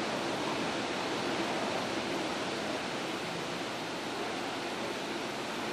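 Ocean surf washing in, a steady rushing noise with no distinct breaks.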